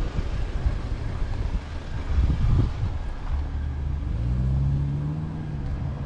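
A car driving past close by at low speed, with wind buffeting the microphone in low rumbling gusts. About halfway through, a steady low engine hum comes in and rises slightly in pitch.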